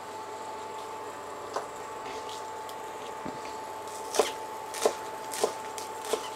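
Chef's knife slicing spring onion greens on a bamboo cutting board: a single knock of the blade on the board early, then four quick knocks about every half second in the second half.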